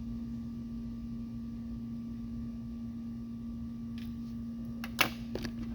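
Steady electrical hum with one pitch throughout, then a few small sharp clicks and taps about four to five and a half seconds in as the small connector and jeweler's screwdriver are handled.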